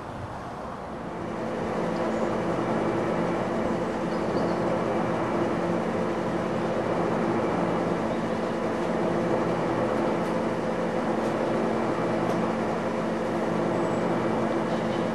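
LNER A4 Pacific locomotive standing in steam, giving a steady rush with a low hum, which swells about a second and a half in and then holds level.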